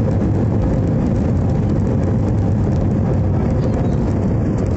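Jet airliner's engines and rushing air heard from inside the cabin as a loud, steady, deep roar during the landing roll, with the spoilers raised on the runway.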